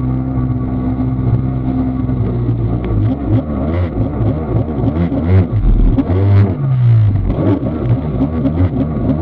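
Kawasaki 750SX stand-up jet ski's two-stroke twin engine running at a steady pitch, then from about three seconds in revving up and down as the ski carves, with the pitch falling away briefly a little past the middle.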